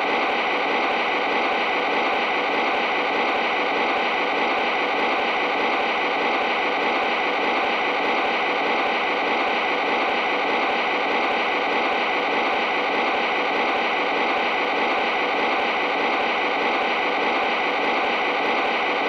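Steady, hissy diesel engine sound from an O scale model locomotive's onboard sound system, played through a small speaker while the train stands still.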